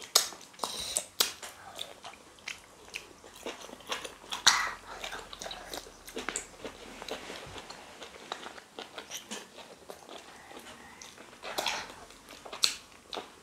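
Close-up mouth sounds of eating fufu and egusi soup by hand: chewing, lip smacks and fingers being sucked clean, a run of short wet clicks.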